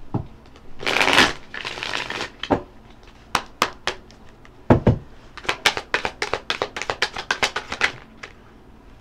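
A deck of tarot cards being shuffled: a long swishing shuffle about a second in, a knock of the deck midway, then a fast run of crisp card flicks for a couple of seconds near the end.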